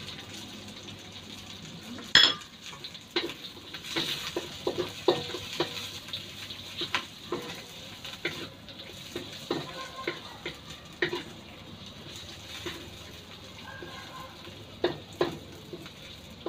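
Onion and garlic sizzling in oil in a stainless steel wok, with irregular knocks and scrapes of a wooden spatula stirring against the pan; one louder clank about two seconds in.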